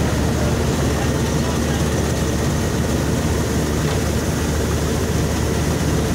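Swaraj 8200 combine harvester running steadily under load while its unloading auger discharges threshed paddy into a trolley, a constant heavy engine hum with a rushing noise over it.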